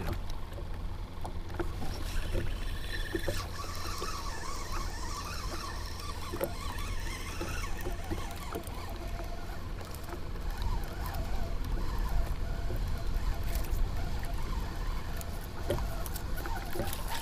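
Small waves lapping against a fishing kayak's hull, with a steady rumble of wind on the microphone and scattered light clicks and faint squeaks.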